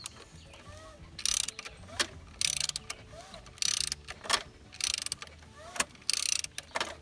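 Hand socket ratchet on the crankshaft pulley bolt of a Volkswagen/Audi 1.8T engine, turning the engine over by hand. The pawl clicks in five short rapid bursts, about one a second, as the handle swings back between pulls. The engine is being rotated to check that the newly fitted timing belt and accessory belts turn freely.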